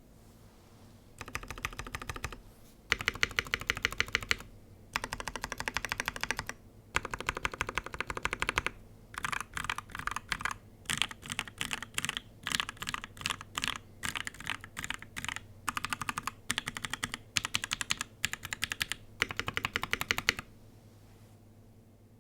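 Noxary 378 custom mechanical keyboard being typed on: Pewter (Tribosys 3204) tactile switches and CRP keycaps on a polycarbonate plate. It clacks in fast runs of keystrokes with brief pauses between them. The typing starts about a second in and stops about two seconds before the end.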